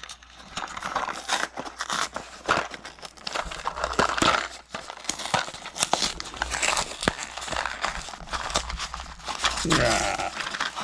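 Lego minifigure blind-pack packaging being torn open and handled, with continuous irregular crinkling and crackling as the pieces are taken out.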